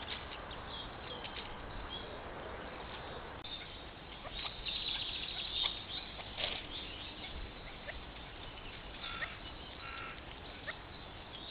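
Woodland birds calling over the steady hiss of a trail camera's microphone, with a spell of rapid rattling noise a little before the middle and two short calls near the end.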